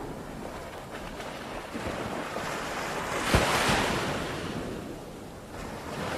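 Wind buffeting the microphone as an even rush with low rumbling. A gust swells to a peak with a brief low thump a little past halfway, then eases off.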